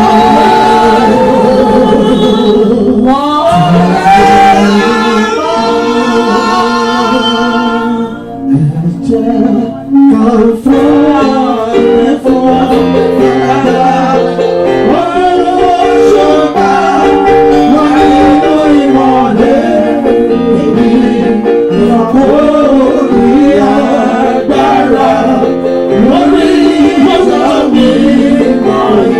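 Gospel praise music: singing over a sustained keyboard accompaniment, with a brief drop in volume about eight seconds in.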